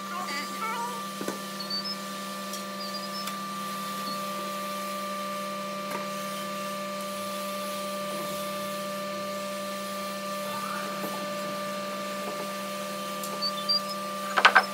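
Steady hum of a running workshop machine, even and unchanging in pitch. Near the end come a few sharp knocks, as of hardwood pieces being handled and set against each other.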